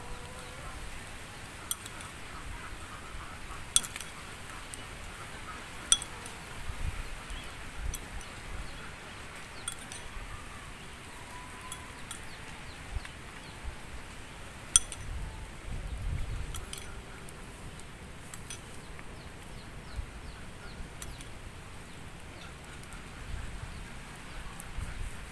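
Irregular light metallic clinks and taps, a spoon knocking against small cut-down aluminium beer-can cups as corn kernels are spooned in, a dozen or so spread unevenly, a few sharper than the rest.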